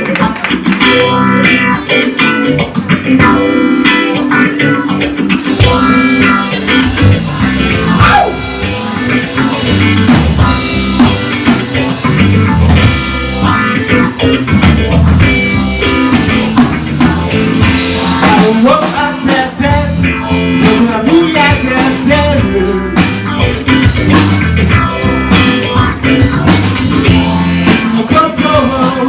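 Blues-rock song played by a band: guitar over a drum kit.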